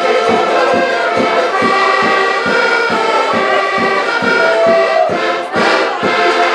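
Group of accordions playing a folk tune together over a steady, even bass beat, with a brief break about five and a half seconds in.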